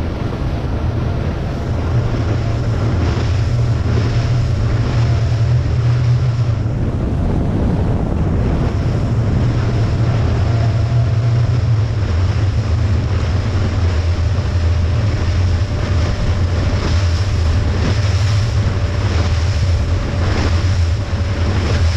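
Motorboat under way: steady engine drone and water rushing past the hull, with wind buffeting the microphone.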